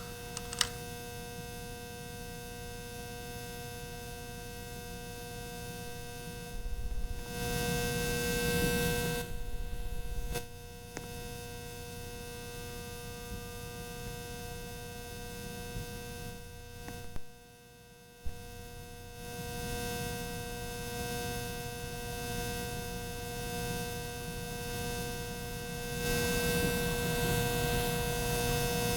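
Ceiling fan motor giving off a loud, steady electrical hum with a whine at several pitches. The hum swells louder for a few seconds partway through and again near the end, with a brief dropout and a few clicks around the middle.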